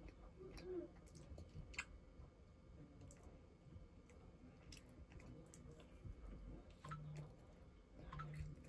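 Faint chewing of a doughnut, with soft scattered mouth clicks.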